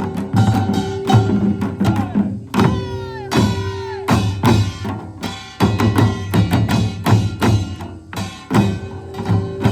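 Korean pungmul percussion band playing a fast, driving rhythm on gongs and drums, with metallic ringing held over the beat.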